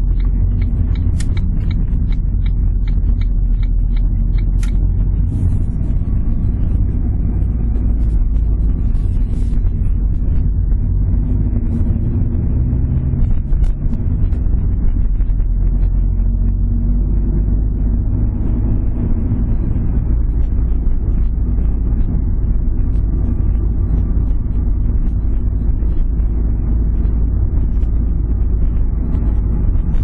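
Car cabin sound while driving: a steady low engine and road rumble. For the first five seconds a turn indicator ticks about twice a second.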